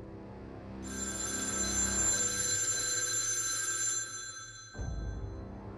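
Old rotary telephone's bell ringing once for about three seconds, starting about a second in, over a low, dark music drone.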